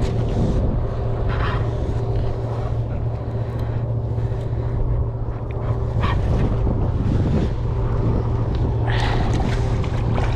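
Small outboard motor running steadily at low revs while a hooked kingfish is reeled in. From about nine seconds in, splashing as the fish thrashes at the surface beside the boat.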